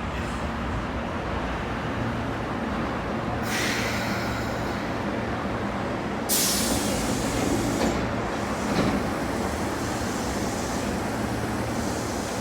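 Osaka Metro train at a station platform with a steady rumble, and two sudden hisses of air: a short one about three and a half seconds in, and a louder one starting about six seconds in.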